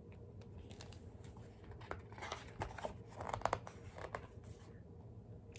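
Quiet rustling and small clicks of book pages being handled and turned, mostly in the middle.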